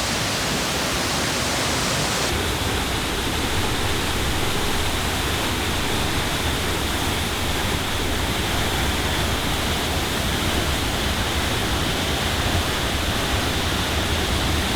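Large waterfall's steady rush of falling water, an even, unbroken noise.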